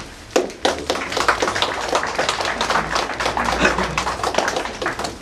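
A small audience applauding: a dense run of hand claps that starts about a third of a second in and dies away near the end.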